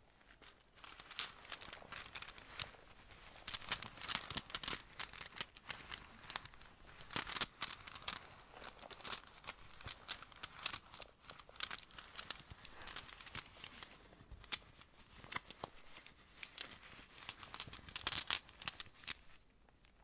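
Close-miked crinkling and rustling of handled material: a dense run of small crackles, dying away just before the end.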